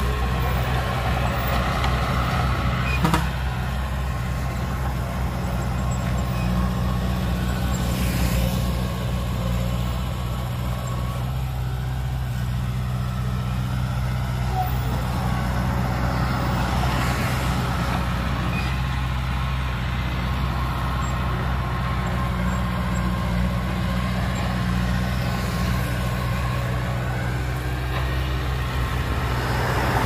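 Heavy diesel engine running steadily at an even speed. A sharp click comes about three seconds in, and brief rushes of hiss rise over the engine twice later on.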